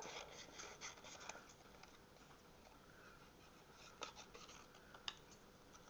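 Scissors cutting through heavy paper: faint quick snips in the first second and a half, then two single sharper clicks about four and five seconds in.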